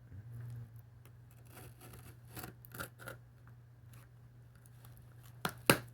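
A cardboard box being worked open by hand, with scraping and rubbing at the cardboard and tape and two sharp clicks close together near the end.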